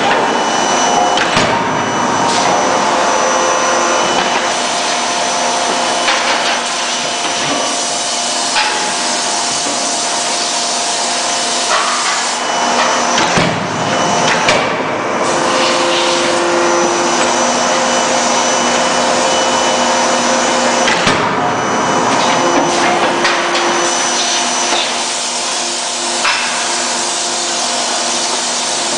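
CNC forging hammer and forge-shop machinery running with a loud, steady mechanical noise, with a few sharp knocks as hot steel is worked under the hammer.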